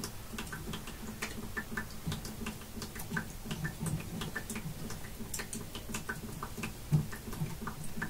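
Light, irregular metal clicks and scrapes, several a second, from a small flathead screwdriver working at the terminal screws of a well pressure switch.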